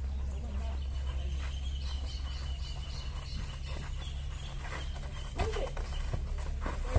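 Outdoor ambience of a football kickabout on a dirt pitch: a steady low hum under faint distant calls and a thin high bird chirp, with one sharp knock near the end as the ball is kicked.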